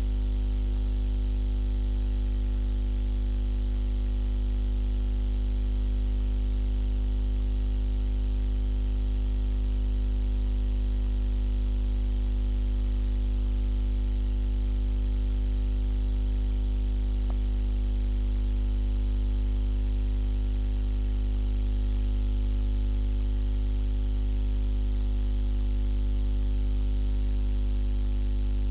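Steady electrical mains hum and buzz, low and unchanging, with a faint hiss above it.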